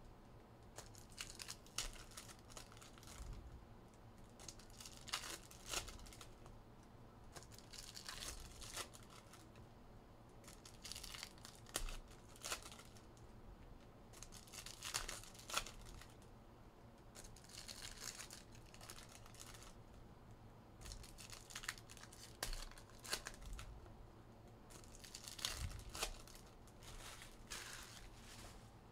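Wrappers of Topps Cosmic Chrome baseball card packs being torn open and crinkled by hand, in short crackly spells every few seconds.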